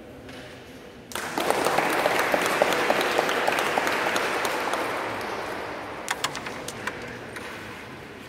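Spectators applauding, starting suddenly about a second in and slowly dying away; a few sharp clicks stand out near the end.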